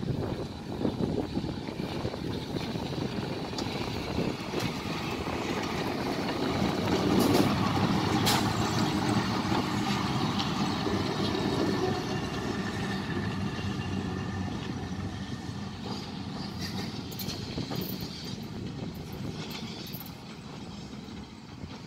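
Vintage FS electric locomotive rolling slowly past, with wheel, rail and running-gear noise. It grows to its loudest about seven to eight seconds in as it passes closest, with a few sharp clicks, then fades as it moves away.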